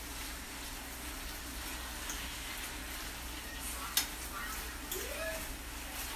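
80/20 ground beef sizzling steadily as it browns in a nonstick skillet, stirred and broken up with a fork. A sharp click about four seconds in.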